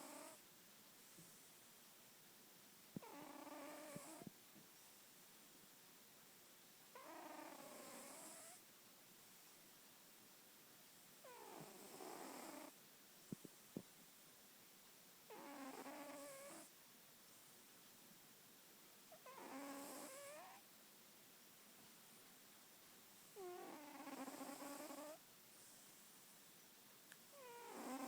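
Domestic cat snoring in its sleep: a short, wavering snore about every four seconds, each lasting a second or so, with quiet between.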